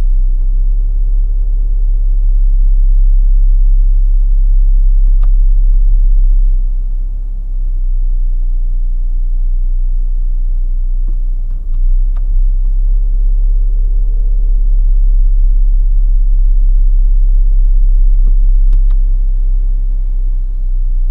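Deep, low booming engine rumble inside the minivan's cabin from the 3.6-litre Pentastar V6 idling at a stop. It eases off about seven seconds in and swells back loud about twelve seconds in, with a few faint clicks. The owner takes the boom, worse in Drive with the brake held and changed by the air conditioning, for an abnormal cabin boom (NVH fault) of the van.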